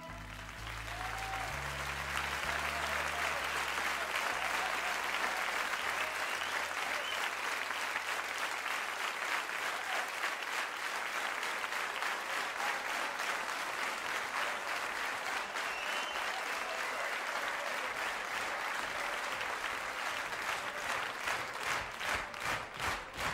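Audience applause, over the last held organ notes that fade out in the first few seconds. Near the end the clapping falls into an even rhythm of about three claps a second.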